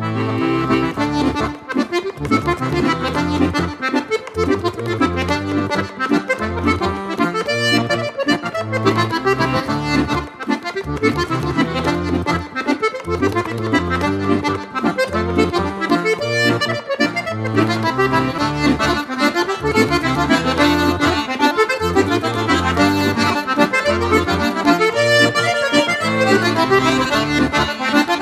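Instrumental background music with a steady rhythmic bass line and a busy melody.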